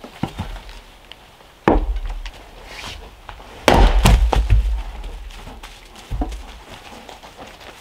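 Axe splitting firewood on a wooden chopping block: a sharp strike about two seconds in, the loudest strike near the middle followed by several smaller knocks of wood, and a lighter knock near the end.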